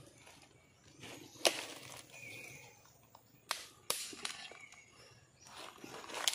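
Quiet forest ambience with a handful of sharp snaps and clicks, the loudest about a second and a half in, and a few faint short chirps.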